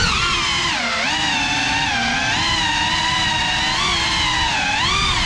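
GEPRC Cinelog35 cinewhoop's brushless motors and propellers whining, the pitch swinging up and down with the throttle: it dips about a second in and climbs again near the end.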